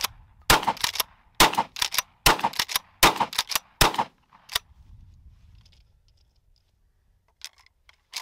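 Rock Island All Gen 12 pump-action 12-gauge shotgun fired in quick succession with low brass birdshot: about six shots, under a second apart, each followed by the quick clack of the pump being worked. One last clack of the action follows, then a few faint handling clicks near the end.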